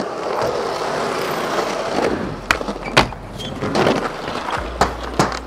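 Skateboard wheels rolling over smooth concrete, with several sharp clacks of the board hitting the ground, the loudest about three seconds in.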